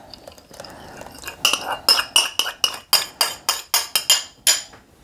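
A metal spoon clinking against a small ceramic bowl as melted butter is scraped out of it into the batter. The clinks come in a quick, light run, about five a second, starting about a second and a half in.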